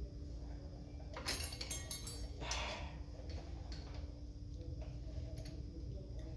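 A few sharp metallic clinks with a short ring, about a second in, followed by a brief rustle, over a steady low hum.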